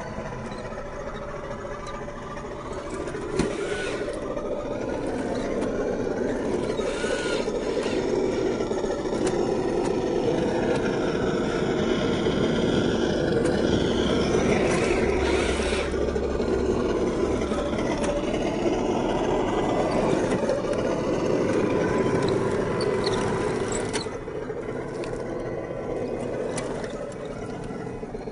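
HG P802 8x8 RC truck's 550 brushed electric motor and geared drivetrain whirring as it crawls over tree roots, with tyres scraping on the wood. It grows louder about three seconds in and eases off near the end.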